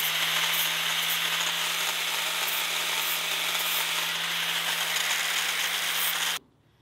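Angle grinder running and grinding a steel shaft clamped in a vise: a steady, loud grinding hiss over the motor's constant hum, which stops abruptly near the end. It is taking about twenty thousandths of an inch off the shaft so a loose-fitting blade guide will fit snugly.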